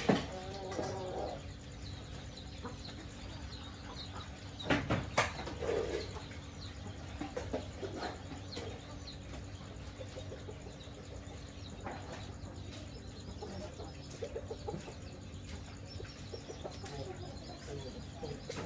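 Chickens clucking and calling off and on, with two sudden loud sounds about five seconds in, half a second apart.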